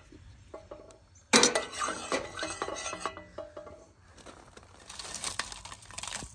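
A metal utensil clanking and scraping against a cooking pot as dried chiles are stirred and browned in hot oil: one sharp, ringing clank about a second in, then softer scraping and stirring.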